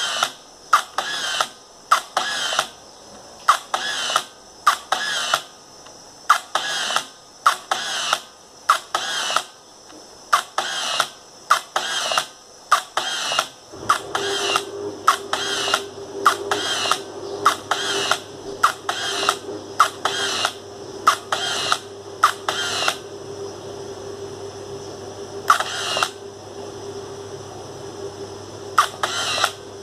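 Yashica T2 35mm compact camera fired again and again, each shutter click followed by a short rising whir of its built-in motor advancing the film, about one frame every two-thirds of a second. The shots thin out to just a few near the end.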